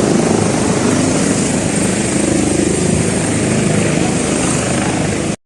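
Airbus helicopter running at close range while hovering: a loud, steady rush of engine and rotor with a fast low chop. It cuts off suddenly near the end.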